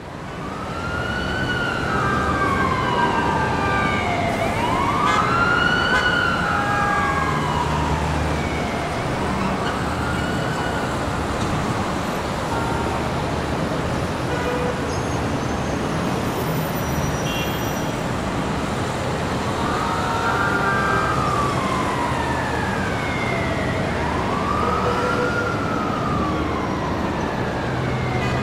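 Emergency vehicle siren wailing, its pitch rising and falling slowly about every four to five seconds; it fades for several seconds midway, then comes back. Under it runs a steady hum of city street traffic.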